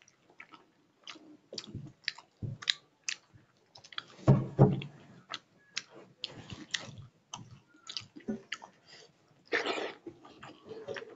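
Close mouth sounds of a man chewing rice and dal with his mouth open: frequent short wet lip smacks and clicks, with a couple of louder, longer squelchy bursts about four seconds in and near the end. His fingers mixing the wet rice in a steel plate add soft squishing.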